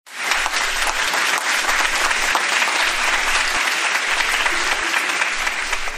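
Audience applause: dense, steady clapping that starts at once, as a game-show opening.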